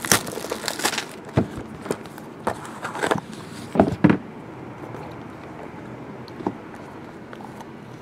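Plastic shrink-wrap crinkling as it is stripped off a trading-card box, then a handful of cardboard knocks and taps as the box is opened and its lid and inner box are handled on the table. After about four seconds only a single light tap is heard.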